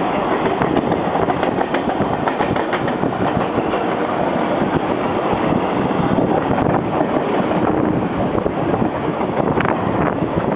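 Mumbai Western Railway suburban electric trains running at speed on adjacent tracks: a loud, steady rumble of steel wheels on rail, shot through with rapid clicks and clatter.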